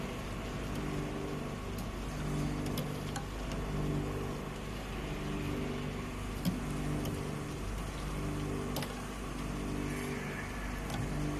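Sweet potato chips frying in hot oil in a batch electric fryer: a steady sizzle under a low machine hum that comes and goes, with a few light clicks of the wire skimmer against the metal basket.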